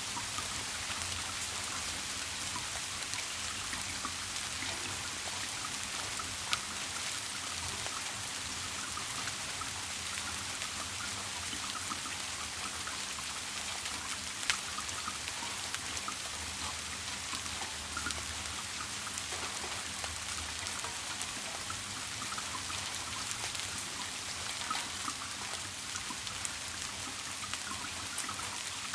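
Steady rain falling, with many small drop ticks and a couple of louder single drop hits.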